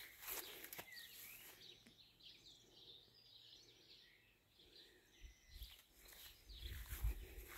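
Small birds chirping faintly in short rising and falling calls. Near the end come rustling and a low thud.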